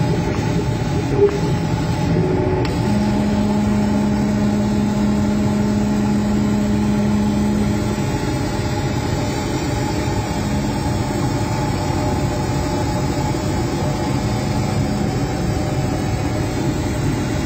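Laser cutting machine running while it cuts an MDF sheet: a steady mechanical hum and rush of air from the machine. A low steady tone comes in about three seconds in and drops out around eight seconds, then returns from about ten to fifteen seconds, with one brief click about a second in.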